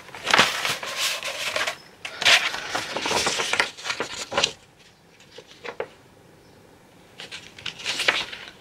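Paper rustling and crinkling as a rolled poster print is handled and unrolled. The rustling stops for a couple of seconds about halfway, then a few more rustles come near the end.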